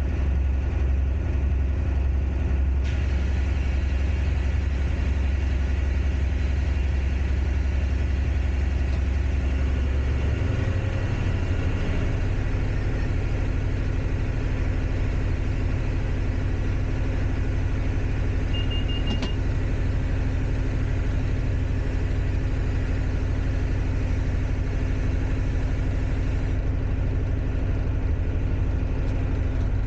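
Diesel locomotive engine running steadily, heard from inside the cab as the train moves along, with a strong low drone. The drone changes note about a third of the way through, as the power setting changes. A short high beep sounds about two-thirds of the way through.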